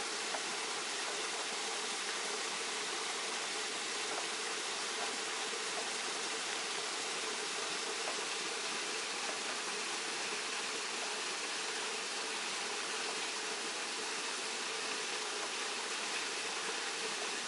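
Small garden waterfall pouring over rocks, a steady, even rush of water that does not change.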